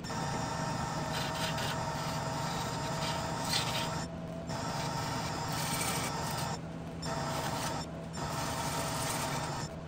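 Wood lathe running with a steady motor hum while a handheld turning tool cuts the spinning urn lid, a rasping hiss. The cutting breaks off briefly three times, about four, six and a half and eight seconds in, while the hum carries on.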